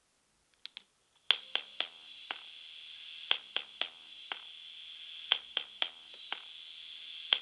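Instrumental intro of a pop song: sparse, short percussive notes with brief pitched decays in a repeating rhythm of four hits every two seconds, over a faint steady high tone.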